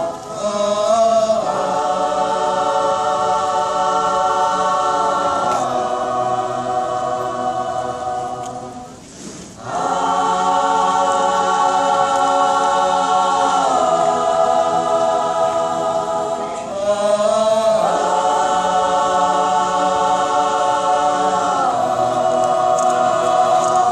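Mixed choir of men and women singing a cappella, holding long sustained chords that shift every few seconds, with a short pause for breath about nine seconds in.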